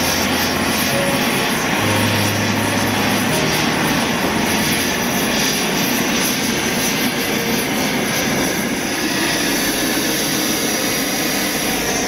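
Gas torch flame hissing steadily as it heats the soldered seam of a brass radiator tank, melting the solder to take the tank off the copper core.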